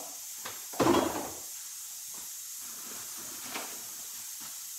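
Steady high hiss of steam escaping from a pressure cooker on the stove, with a brief clunk at the open refrigerator about a second in.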